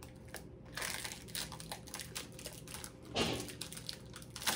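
A candy wrapper crinkling in irregular rustles as a lollipop is unwrapped by hand, with a louder rustle about three seconds in and a sharp crackle near the end.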